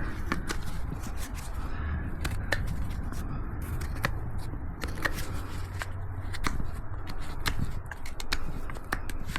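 Hoof knife paring a miniature horse's hoof: irregular scraping with sharp clicks, over a low rumble.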